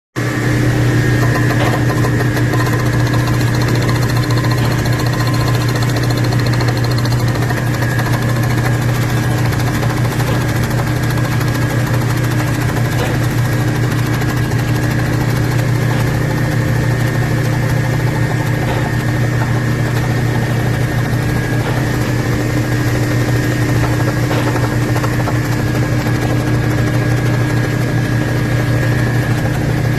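Machine-shop machinery running steadily during cylinder-sleeve work on a Buick nailhead engine block: a constant low hum with a thin high whine above it and a few faint clicks.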